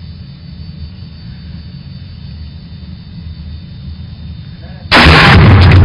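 A low steady rumble, then near the end a sudden gunshot, very loud and distorted, with loud crackling noise carrying on after it.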